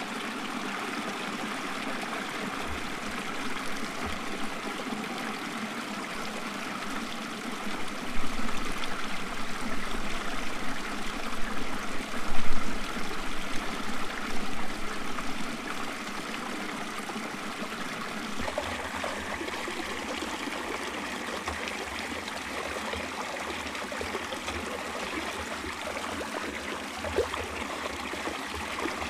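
Steady rush of running water, louder for a stretch in the middle and changing in texture about two-thirds of the way through.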